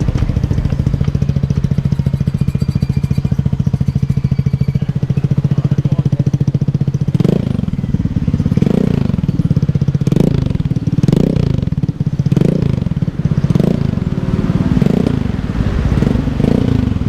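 Rusi RFI-175 scooter engine running through a newly fitted aftermarket Akrapovič muffler, idling steadily. About seven seconds in it starts a series of short throttle blips, roughly one a second, each rising and falling back toward idle.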